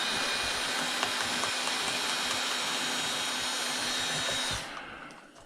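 Power drill-driver motor running steadily with a high whine, driving at a screw that is frozen in place. It is released about four and a half seconds in and spins down.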